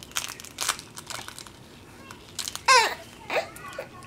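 Light clicks and crinkling from charred onion skins and a spoon being handled on a plate, with a young child's brief high-pitched vocal sound, falling in pitch, about two and a half seconds in.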